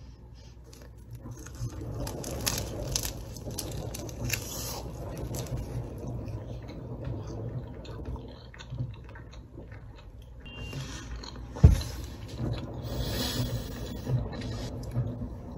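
Close-up eating sounds: biting and chewing a seaweed-wrapped triangle kimbap, irregular and soft. A single sharp thump, the loudest sound, comes near twelve seconds in.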